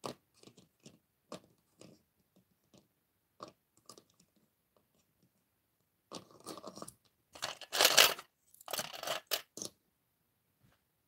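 Small plastic toy figures being handled, picked up and set down with light clicks against a plastic toy and tray. About six seconds in, a denser clatter of small hard objects runs for about four seconds, loudest around eight seconds.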